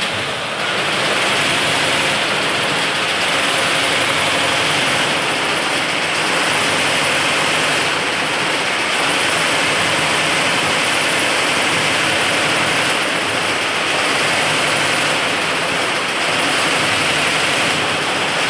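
Multi-head computerized embroidery machine running, its row of needle heads stitching at speed in a loud, steady mechanical rattle.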